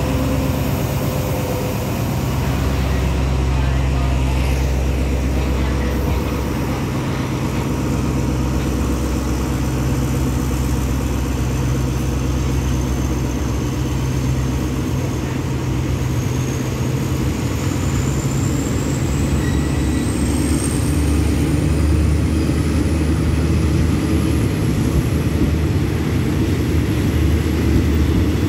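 Alsthom diesel-electric locomotive's engine running steadily with the train at a standstill, a deep continuous drone. A faint high whine rises slowly in pitch from about halfway through.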